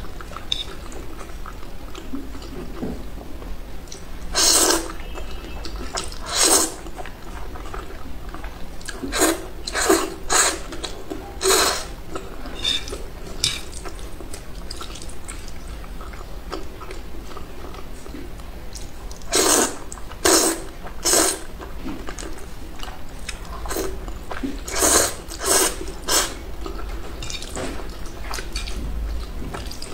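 A person slurping and chewing thick spicy instant noodles. Loud wet slurps come in short clusters every few seconds, with softer chewing between them and a low steady hum underneath.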